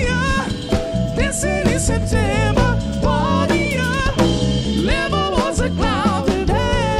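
Live funk band playing an upbeat song, with a drum kit keeping a steady beat under a sung lead melody.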